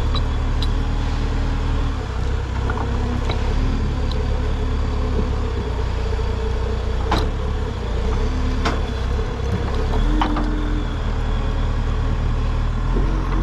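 Heavy diesel farm machine running under load as it digs out buried tree roots, with a steady whine that shifts in pitch now and then and a few sharp knocks, the loudest about seven and nine seconds in.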